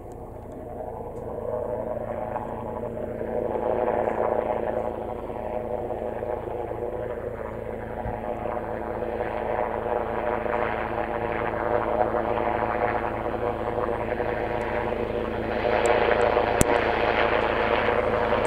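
Helicopter flying in on approach, its engine and rotor sound steady in pitch and growing louder as it comes closer, with a further rise near the end.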